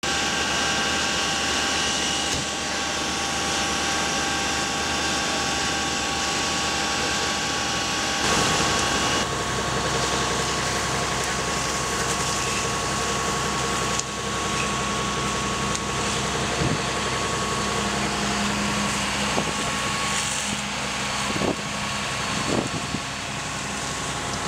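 Fire engines running steadily at a burning building: a continuous mechanical drone with steady whining tones, typical of truck engines and pumps working at a fire scene. A few sharp knocks come in the last third.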